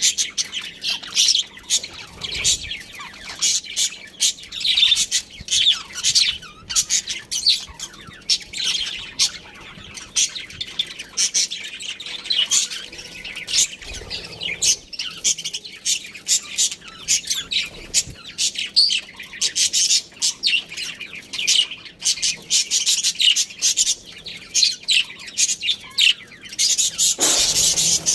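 Budgerigars chirping and chattering in quick, overlapping calls, with a louder, longer harsh call near the end.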